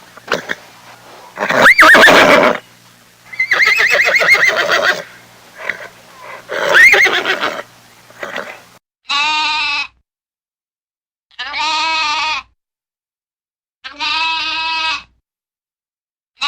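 A horse neighing several times, the calls rising and falling in pitch, then a bleating animal calling three times in evenly spaced one-second calls with silence between them.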